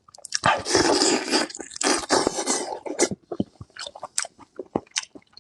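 Close-miked eating of octopus. A loud, continuous stretch of biting and chewing lasts about two and a half seconds, then gives way to a run of short, sharp wet chewing clicks.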